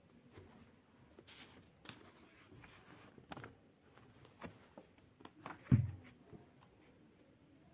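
Paperback book handled and its pages flipped: soft paper rustles and light taps, with one louder thump a little before six seconds in.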